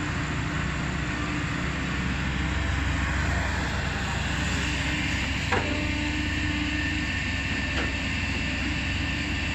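Kobelco SK200 excavator's diesel engine running steadily, with two sharp metallic knocks about two seconds apart past the middle.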